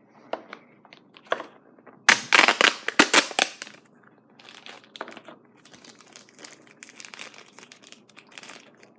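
Plastic blind-bag toy packaging being torn open and crinkled in the hands, loudest in a burst of tearing and crinkling about two to three and a half seconds in, then softer crinkling.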